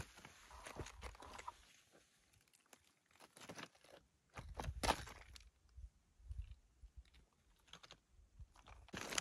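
Hiking footsteps on a rocky, steep slope: irregular crunches and clicks of boots on loose rock and gravel, with a louder cluster of steps near the middle and brief pauses between.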